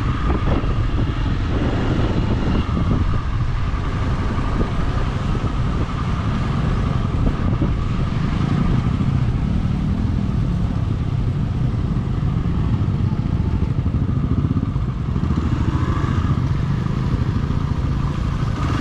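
Motorcycle engine running steadily at low revs while the bike is ridden along a dirt trail.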